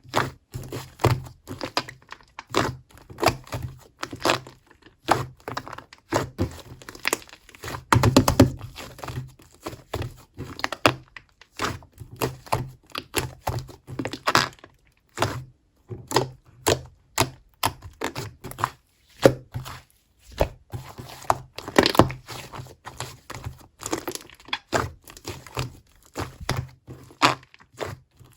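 Slime being squished and pressed by hand, making irregular sticky pops and clicks a few times a second, with longer crackling stretches about a third of the way in and again past the middle.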